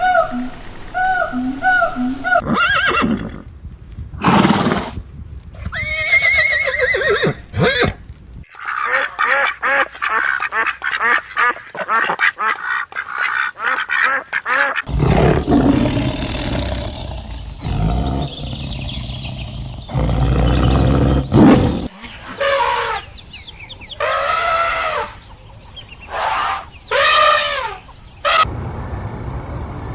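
A run of animal calls cut one after another, changing abruptly every few seconds, among them waterfowl quacking and honking. One stretch near the middle holds rapid repeated calls at several a second.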